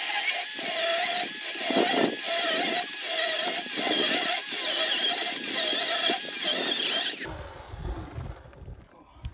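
Ryobi cordless battery chainsaw cutting a notch into a cabin log, its motor whine wavering and dipping over and over as the chain bites into the wood. It stops suddenly about seven seconds in, leaving a few light knocks.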